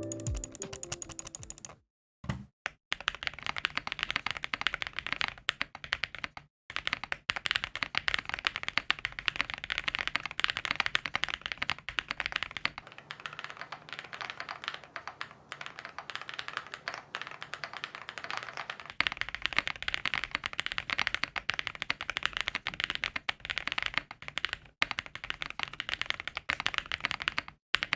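Continuous typing on a Star75 custom mechanical keyboard with frankenswitches (Holy Panda X housings and springs, Tecsee Coffee Chip stems) lubed with Krytox 205g0 and filmed, in a foam-filled, tape-modded case. Keystrokes come in quick succession, with a few brief pauses.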